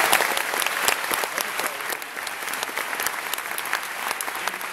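Theatre audience applauding, dense clapping at first that thins out after about two seconds but keeps going.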